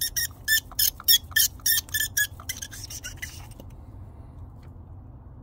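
Green abrasive scrubby pad on a dowel squeaking against the metal walls of a diesel injector bore as it is twisted by hand, scouring out carbon from a leaking injector seat. It gives short, sharp squeaks at about three a second that stop about three and a half seconds in.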